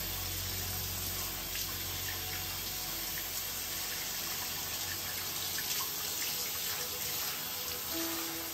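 Tap water running steadily into a bathroom sink, splashing over a wet cat as it is washed by hand.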